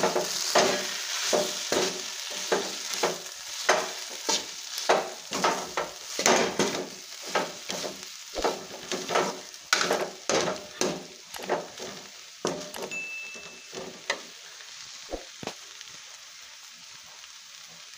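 Metal spoon stirring and scraping cluster-bean sabzi around a metal kadhai in quick strokes, about two a second, over the sizzle of the dish frying. The strokes thin out and stop about thirteen seconds in, leaving the low sizzle with a couple of light clicks.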